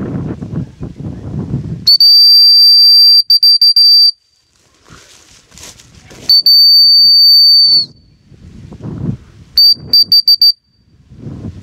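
Dog-training whistle blown in two long steady blasts and then a quick run of about five short pips, signalling a gun dog working the field. Wind buffets the microphone between the blasts.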